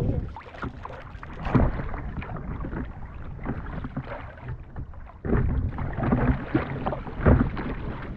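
Double-bladed paddle strokes splashing in choppy lake water as an inflatable SUP board is paddled along, the chop sloshing against the board. A heavier low rumble of wind on the microphone comes in about five seconds in.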